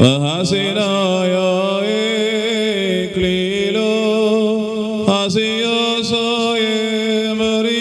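A man chanting a slow liturgical melody into a microphone: a single voice holding long notes with a wavering, ornamented pitch, part of the crowning blessing in a Jacobite Syriac wedding service.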